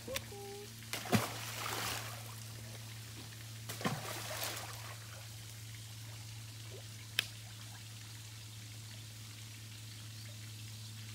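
A block of ice dropped into a pond, hitting the water with a loud splash about a second in, then a second splash around four seconds in as the water churns. A sharp click comes near seven seconds, over a steady low hum.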